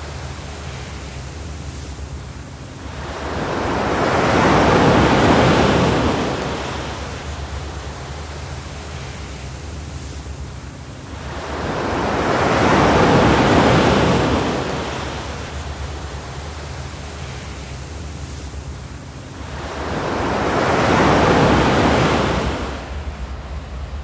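Pacific Ocean surf breaking and washing up a sand beach: three waves about eight seconds apart, each swelling to a loud rush and fading back to a steady hiss of surf.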